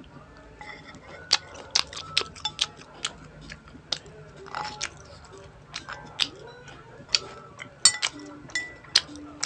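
Metal fork clicking and scraping against a plate, mixed with close-miked chewing of pizza, in a quick irregular series of sharp clicks.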